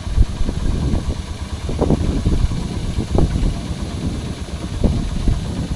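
A wooden tour boat's engine running underway with an uneven low rumble. A few louder thumps come through about 2, 3 and 5 seconds in.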